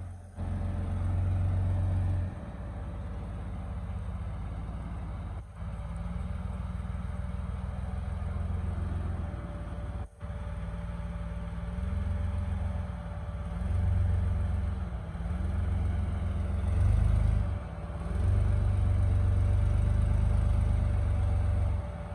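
Engine of a lifted 4x4 truck rock crawling over boulders, low and steady, rising and falling in level as the throttle is worked in short pushes.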